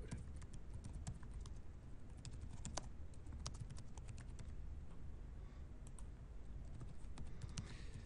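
Computer keyboard typing: a run of irregular keystrokes, with a short lull around the middle before the typing picks up again.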